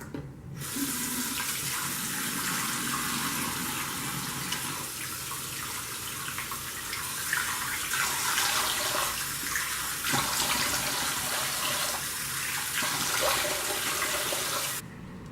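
Steady rush of splashing water that starts abruptly and cuts off suddenly near the end.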